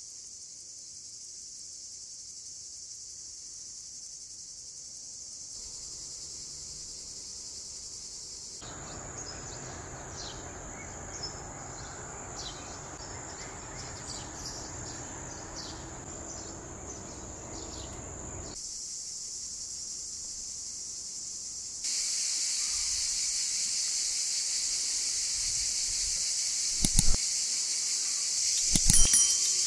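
Crickets chirring steadily. In the middle part a rushing noise and short bird chirps join in, the chirring turns louder a little later, and a few sharp knocks come near the end.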